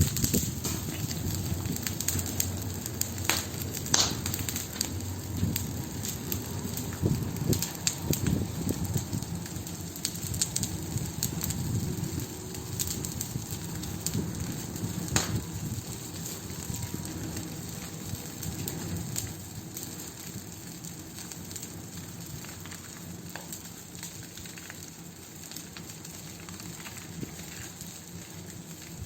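Wood fire crackling, a steady low rumble of flames with scattered sharp pops and snaps, a few standing out in the first half. The fire grows a little quieter over the second half.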